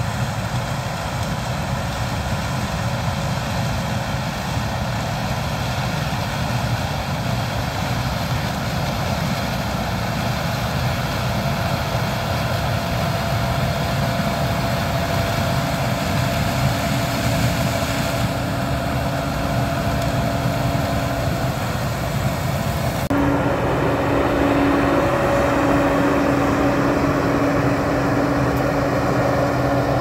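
Heavy diesel harvest machinery running steadily. About three-quarters of the way through, the sound changes abruptly to a slightly louder, closer drone with a steady hum.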